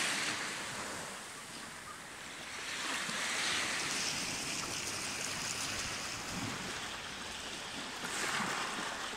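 Small sea waves washing up onto a stony, sandy beach, swelling and falling back in about three washes.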